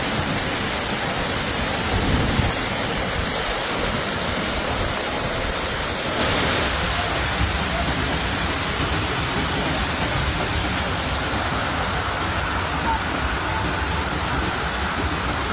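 Heavy rain and rushing floodwater: a steady, even rush of water noise. It changes abruptly about six seconds in, when it becomes brighter and hissier, and again near eleven seconds.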